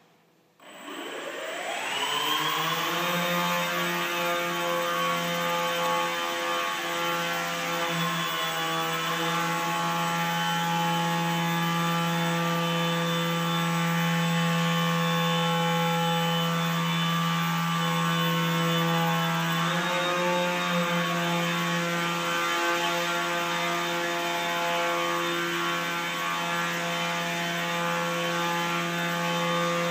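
Small spherical caged drone's electric motors and propellers spinning up about half a second in, the whine rising in pitch over two seconds, then a steady hovering drone with small shifts in pitch as it flies.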